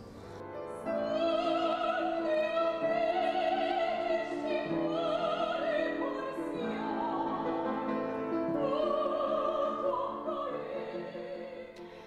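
Operatic soprano singing with piano accompaniment: long held notes that waver with vibrato, in several phrases, fading near the end.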